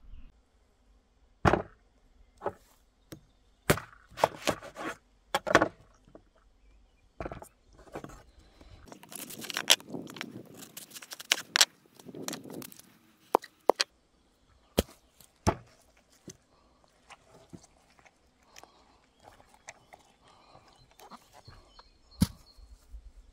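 Handling noises from a halved watermelon and a knife on a wooden plank bench: a scattered run of about fifteen sharp knocks and clatters, with a few seconds of rustling and scraping near the middle.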